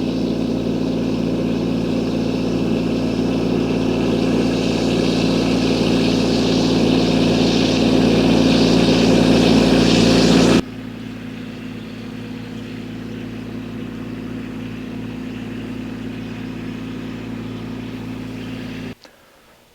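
Diesel tractor engine running at a steady speed, growing gradually louder. About ten seconds in it cuts abruptly to a quieter, steady engine sound, which drops out just before the end.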